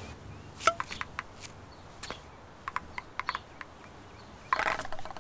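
Cutlery clinking against plates at a breakfast table: a string of light, irregular clicks, some with a short ring. Near the end comes a brief rustle.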